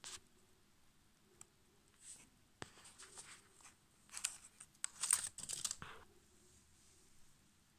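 Faint handling noise: a click at the start, then a few seconds of light rustling and clicking from about two and a half to six seconds in.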